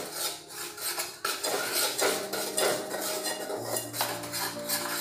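A metal spoon stirring dry flour and cocoa powder in a metal mixing bowl, scraping and clinking against the bowl in repeated strokes.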